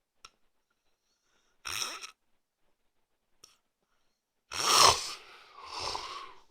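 A sleeping man snoring: short, rasping snore breaths about every three seconds, then near the end a much louder snort followed by more uneven breathing noise.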